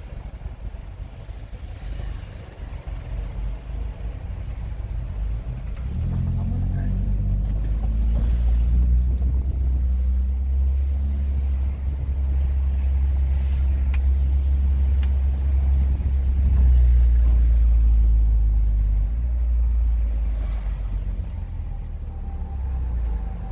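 Hyundai Tucson 2.0's exhaust running with the rear muffler removed: a deep low drone that builds about six seconds in, holds steady, then eases off near the end.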